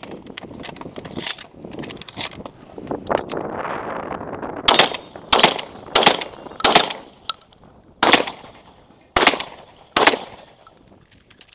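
Remington autoloading shotgun firing bird shot in a quick string: four shots about two-thirds of a second apart, then three more spaced out over the next few seconds.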